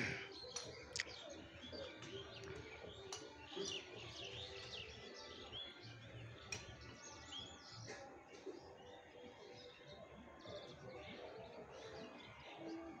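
Small birds chirping and twittering in many short, quick calls, busiest in the first half, over a faint background hum of the surroundings.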